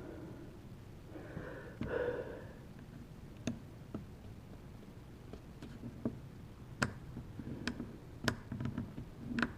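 Scattered small clicks and taps, about seven at uneven spacing, from hands working the plastic parts of a drone while taking it apart. A short sniff comes about two seconds in.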